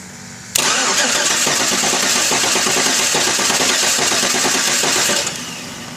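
The starter cranking over the Saab 9-7X's 5.3 L V8 with its valve cover off. It starts abruptly about half a second in, runs steadily and rhythmically, and stops about five seconds in. One cylinder has zero compression, which the owner suspects is a bad lifter or cam.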